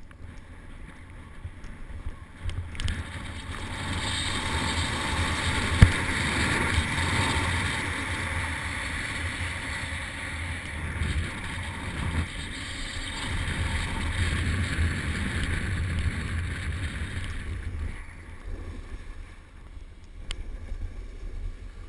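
Wind rushing over a helmet-mounted camera and a snowboard sliding fast over snow: a broad rushing hiss over a low buffeting rumble. It builds about three seconds in and eases off near the end as the board slows. A single sharp knock sounds about six seconds in.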